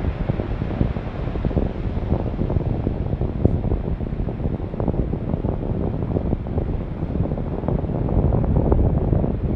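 Wind buffeting the microphone over the steady wash of sea waves on a beach.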